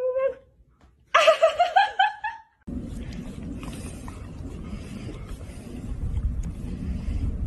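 A husky's howl ends at the start, then about a second in the husky gives another warbling, wavering howl of about a second and a half that rises in pitch at the end. After that comes a steady low rumbling noise.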